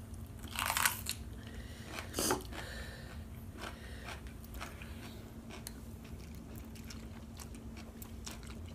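Close-up chewing of a raw jalapeño pepper, with short crunchy bites scattered through and a couple of louder ones in the first few seconds.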